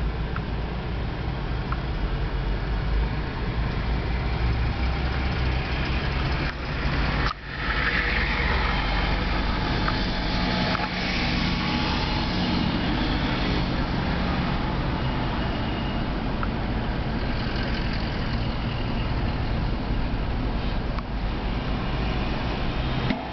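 Steady engine and road noise of a car heard from inside its cabin as it drives slowly, with a low rumble. The sound briefly drops out about seven seconds in.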